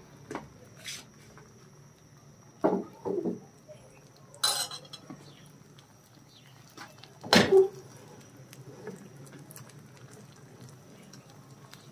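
Steel cooking utensils, a ladle and a slotted spatula, knocking and clinking against a frying pan several times as rice-flour batter cooks. The loudest clink comes about seven seconds in and rings briefly.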